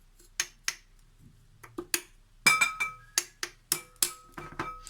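A metal spoon clinking against glass: a string of sharp clinks, a few at first and then quicker and louder from about halfway, several leaving a short glassy ring.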